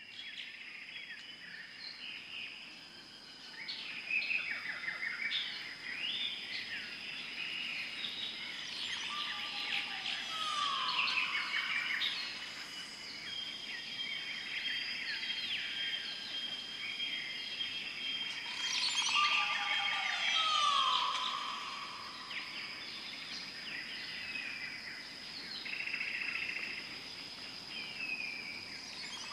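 Rainforest ambience: a dense chorus of many birds chirping and whistling over a steady high insect drone. A call that slides downward in pitch comes back about every ten seconds, around a third of the way in, two-thirds of the way in and at the end.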